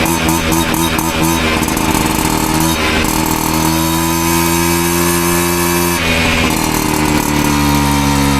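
Piaggio Ciao moped's small two-stroke engine running through an aftermarket Giannelli exhaust, its note shifting about three seconds in and again near six.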